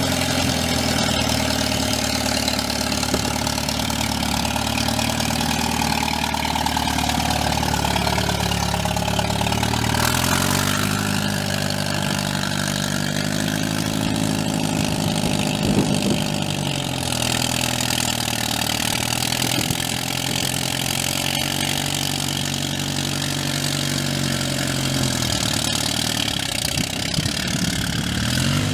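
International 354 tractor's four-cylinder gas engine running as the tractor drives off. Engine speed picks up about a third of the way in and drops back again about three-quarters of the way through.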